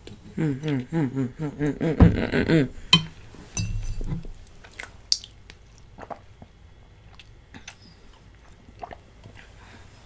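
About two seconds of a pitched, rapidly wavering vocal sound with a thump in the middle, followed by quiet chewing of dense cheesecake with scattered small clicks.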